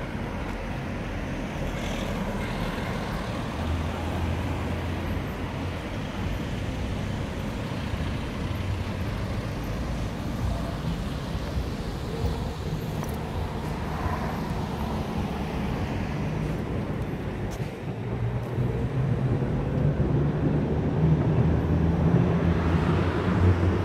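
Road traffic: cars driving past on a city street, with a low engine hum that grows louder near the end.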